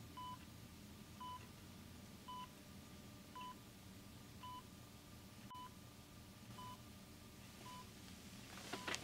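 Hospital heart monitor beeping steadily, a short electronic beep about once a second, over a low room hum. A brief scratchy noise comes just before the end.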